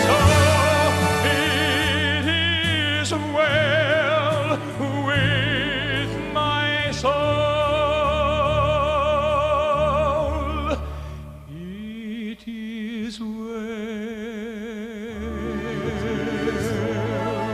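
Gospel vocal group singing long held notes with heavy vibrato over instrumental accompaniment. The music drops softer about two-thirds of the way through, then swells again near the end.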